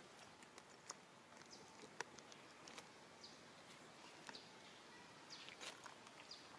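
Near silence: faint outdoor background with scattered soft clicks and a few faint high chirps.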